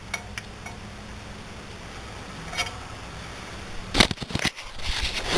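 Suspension parts being handled and fitted back together: a few light clicks, then a burst of knocks and clatter about four seconds in, over a steady low hum.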